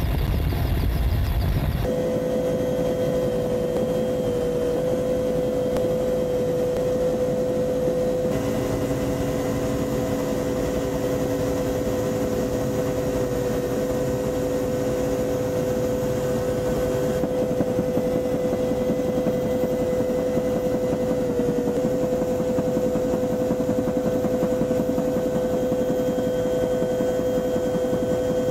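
Steady engine drone of an aircraft in flight, heard from on board. About two seconds in, a deeper rumble gives way to a strong, steady mid-pitched hum over a constant rushing noise.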